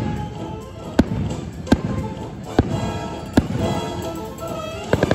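Fireworks bursting with sharp bangs about once a second, then a quick rattle of several bangs near the end, over music.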